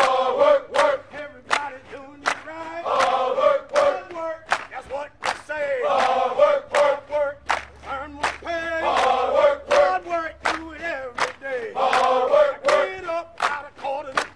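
A group of voices chanting a military cadence in unison, a phrase about every three seconds, over sharp even beats about two a second in time with a marching step.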